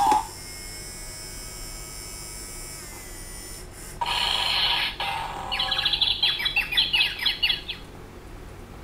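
Talking Mayor Kosmoceratops dinosaur toy playing an electronic sound effect through its small speaker: a short hiss about four seconds in, then a rapid run of short high chirps lasting about two seconds.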